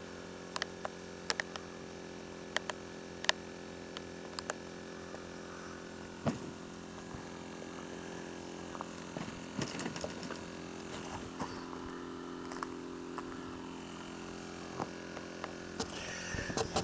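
Electric air pump running steadily, inflating one of the air chambers of an inflatable boat, with a few light clicks and knocks over the top.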